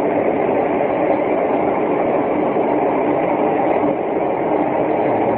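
Loud, steady rumbling drone with no breaks or distinct beats: the unexplained night-time noise that has been going on off and on for hours, of a source the person recording cannot identify.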